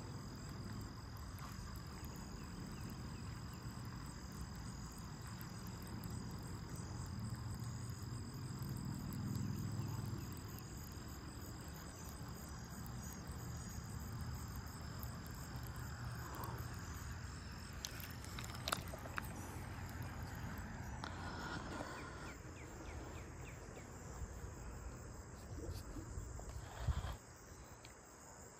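Insects droning with one steady high-pitched tone, over a low rumble, with a few short clicks and a knock near the end.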